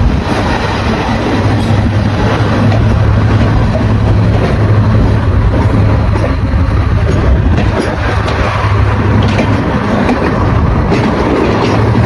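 Locomotive-hauled train running by with a loud, steady low drone.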